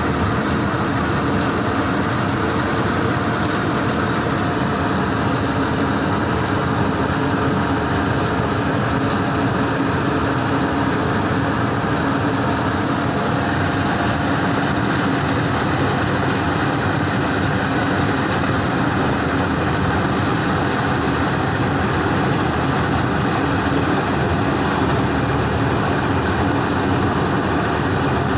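N S Agro mini combine harvester running steadily, its engine and machinery making a constant, even noise.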